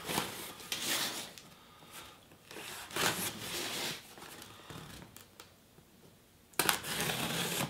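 Packing tape on a cardboard box being slit open with a small pointed tool: several short scratchy strokes, then a longer, louder rasp near the end.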